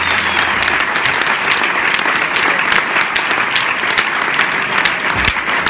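Audience applauding, a dense steady clatter of many hands clapping, as the last low note of the song dies away in the first half-second.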